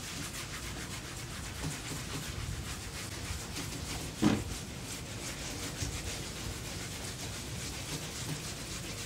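A wet teak deck being hand-scrubbed in circular strokes with a small abrasive doodlebug pad: a steady wet rubbing and scouring. One brief louder knock about four seconds in.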